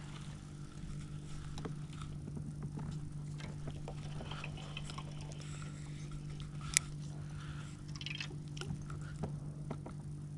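A steady low hum from the boat, with small clicks and rustles as a spinning reel and line are handled, and one sharp click about two-thirds of the way through.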